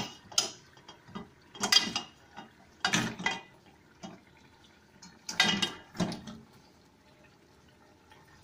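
Mutton trotters tipped and pushed with tongs from a steel colander into a steel pressure cooker: a run of sharp clatters and clanks, bone and metal knocking on the pot, about six of them over six seconds.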